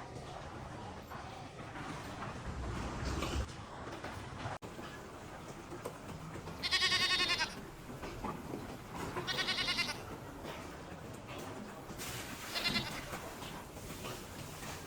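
Goats bleating: three separate wavering calls, the first and loudest about seven seconds in, then a second about two seconds later and a shorter third near the end.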